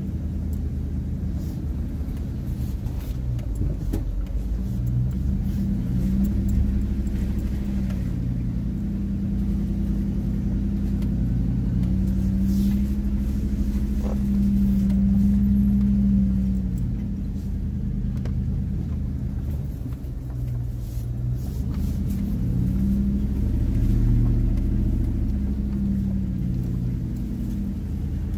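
Chevrolet Silverado pickup's engine running at low speed in four-wheel drive on a rough trail, its revs slowly rising and falling several times, with a few faint knocks.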